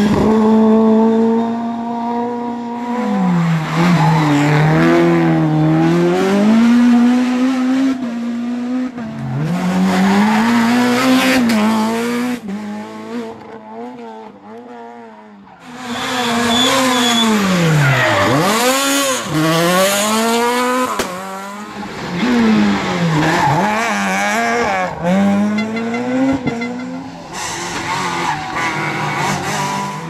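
Rally car engines at full throttle on a tarmac stage, the revs climbing through upshifts and dropping sharply on downshifts into corners. There are several cars in turn, with a quieter gap about halfway through, then a fast run of downshifts.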